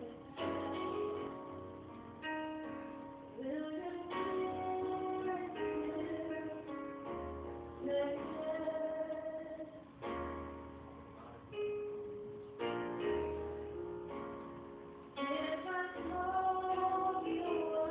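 Praise song: a woman singing over plucked guitar, with held notes and a deep bass note under each phrase; the sound is dull and muffled, with no highs.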